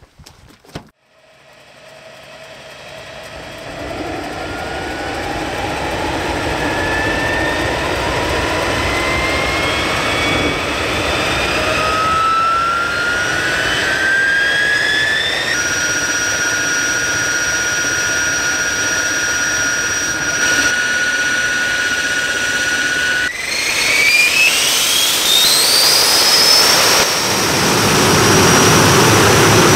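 Jet engine starting up: a whine climbs steadily in pitch as the turbine spools up, over a growing rush of exhaust. It then holds a steady pitch. About two-thirds through, it climbs again to a higher, louder steady whine.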